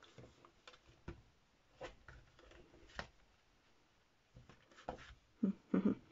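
Faint handling of a glued cardstock mini album: light rustles and a few sharp taps of card on the mat as its cover is straightened.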